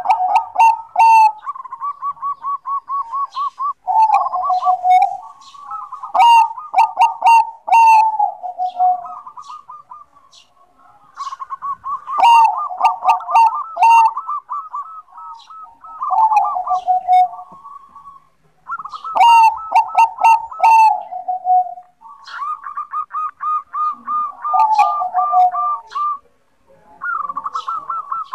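Perkutut bangkok (zebra dove) singing steadily: repeated phrases of fast staccato coos, each a second or two long and often stepping down in pitch at the end, with short pauses between phrases.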